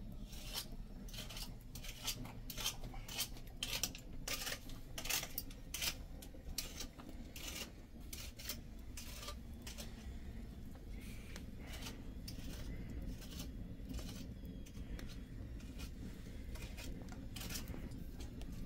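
Wood fire crackling, with irregular sharp snaps and pops over a steady low rumble. The snaps come thickest in the first half.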